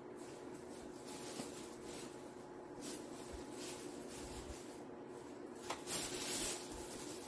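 Soft rustling of children's dresses being handled, louder for a moment about six seconds in, over a faint steady hum.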